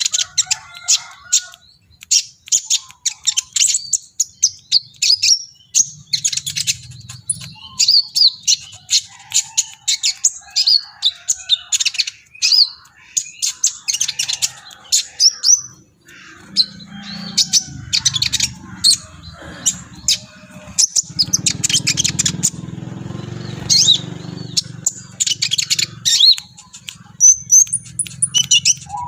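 A sunbird (the bird Indonesian keepers call 'kolibri ninja') singing energetically in rapid runs of sharp, high chirps and trills. A low background hum comes in from about halfway through.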